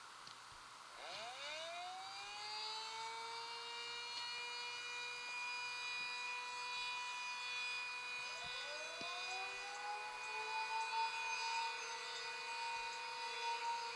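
Two outdoor warning sirens. One winds up about a second in and holds a steady alert tone; a second winds up about eight seconds in and joins it on a steady tone.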